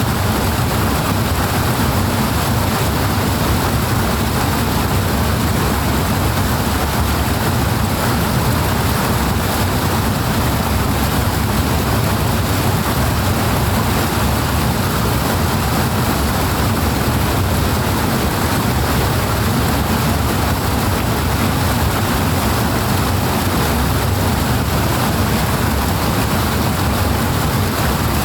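Powerfully rushing water, a loud, dense, unbroken noise heavy in the low end, holding steady throughout.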